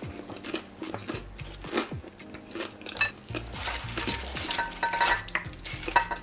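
Metal cutlery clinking and scraping against a plate or bowl while eating, in many short clicks, with a brief ringing clink a little past the middle.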